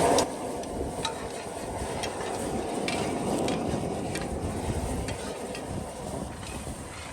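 A spoon stirring a pot of étouffée, scraping through the thick mixture with scattered light knocks against the pot.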